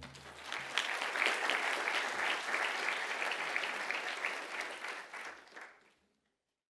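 Audience applauding, building up over the first second, then dying away and stopping about six seconds in.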